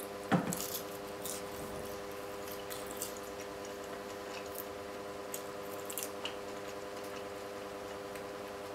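Close-miked eating sounds: a person chewing a bite of flaky pastry with ketchup, with scattered short, wet mouth clicks and smacks, the loudest just after the start. A steady hum runs underneath.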